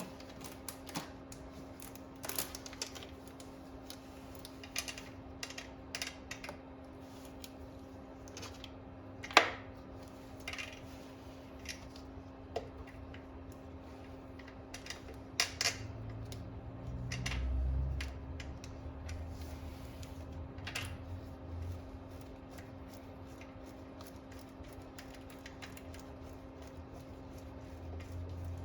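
Scattered light clicks and taps of small parts and hand tools being handled during reassembly of a scooter carburetor, over a steady faint hum. One sharper click comes about a third of the way in, and a dull low bump a little past halfway.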